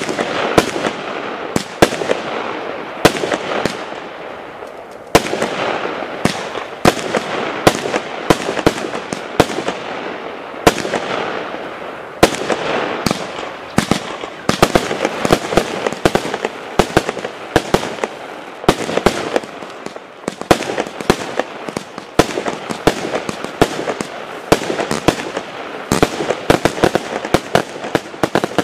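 Firework cake (multi-shot barrage) firing a continuous run of sharp bangs, several a second, as its tubes launch and burst shells overhead, with a steady hiss between the bangs.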